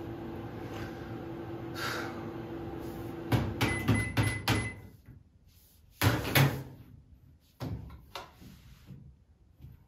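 Microwave oven running with a steady hum. About three and a half seconds in there are several clicks and a short high beep, and the hum stops as the cycle ends. About six seconds in the door pops open with a loud clack, followed by a few lighter knocks.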